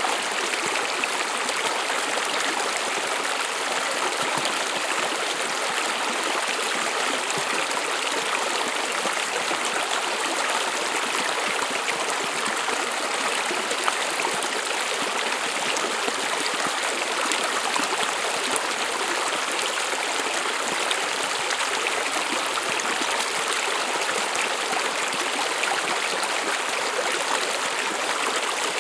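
A small stream flowing: a steady, even rush and babble of running water.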